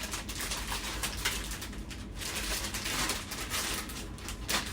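Packaging being handled during an unboxing, rustling and crinkling, with a few light clicks and knocks.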